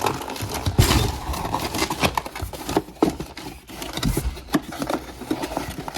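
A boxed car part being handled and unpacked: rustling packaging with scattered scrapes, clicks and small knocks.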